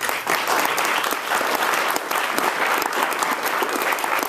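Audience applauding, many people clapping together; it starts suddenly and keeps up steadily.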